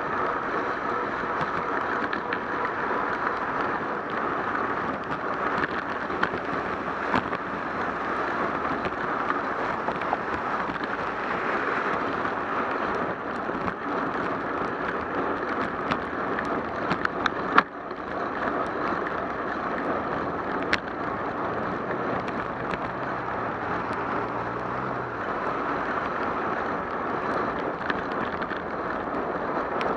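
Steady hiss of a bicycle rolling on rain-soaked pavement, mixed with wind on the microphone and passing traffic. Scattered sharp clicks and rattles come from bumps, with a loud knock a little past halfway.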